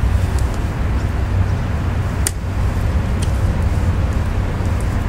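Steady low rumble of background road traffic, with a few faint ticks and one sharper click a little after two seconds in from hands tying the air layer to its stake.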